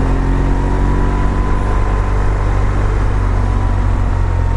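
BMW GS Adventure's boxer-twin engine running at steady, low revs as the motorcycle rolls along, with road and wind noise over it.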